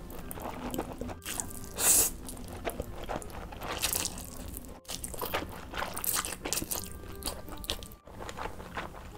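Close-miked eating sounds: spicy instant noodles slurped in, along with crisp crunching and chewing of a breaded fried shrimp. Broken by a few very brief dropouts, about a second, five seconds and eight seconds in.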